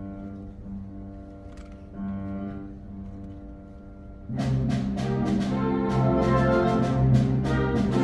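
Orchestra playing classical music: soft held chords at first, then about four seconds in the full orchestra comes in loudly with sharp, repeated accented strokes.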